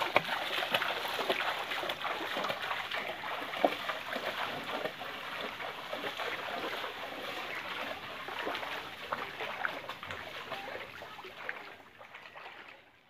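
Feet wading through calf-deep floodwater, a continuous run of sloshing splashes with each stride, fading away near the end.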